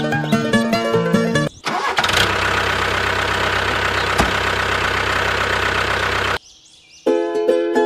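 A motor running steadily for about four and a half seconds, with one sharp click partway through, then cutting off suddenly. Plucked-string background music plays before it and comes back near the end.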